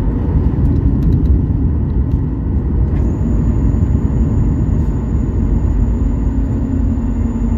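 Loud, steady rumble inside the cabin of a Ryanair Boeing 737 rolling on the ground just after landing: engine noise and wheel and airframe rumble heard from a window seat over the wing.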